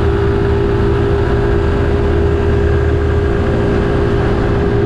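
Suzuki Gixxer 155's single-cylinder engine held at high revs under full throttle at expressway speed, its note steady in pitch. The engine is screaming while the bike gains little speed: it is working near the limit of its 155 cc.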